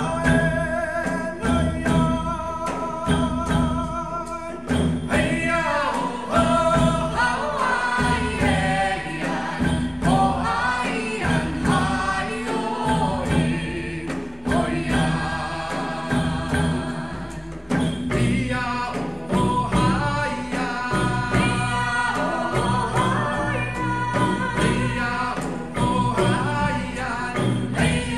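Music: singing voices over a band with a steady drum beat.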